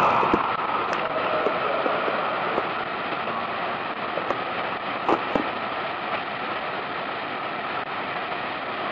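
Steady hiss with a few faint knocks, heard through a police body camera's small microphone.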